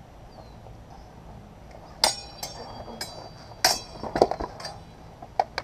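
Steel sparring swords clashing blade on blade in a fencing exchange: a flurry of sharp, ringing strikes starting about two seconds in, with two quick final clinks near the end.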